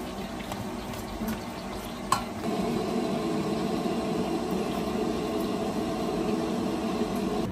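Spatula stirring shredded fried tongkol (mackerel tuna) and spice paste in a frying pan, which sizzles steadily, with light scrapes and clicks against the pan. About two and a half seconds in, the sizzle grows denser and louder.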